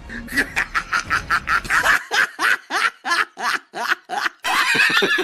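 High-pitched rhythmic laughter, a rapid 'ha-ha-ha' run of short bursts, about five or six a second. Near the end it grows denser as more than one voice laughs at once.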